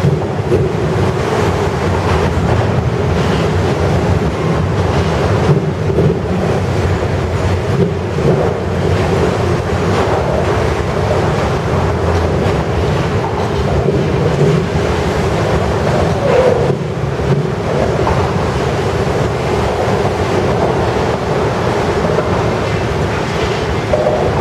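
Autorack freight cars rolling past close by: a loud, steady rumble of steel wheels on rail.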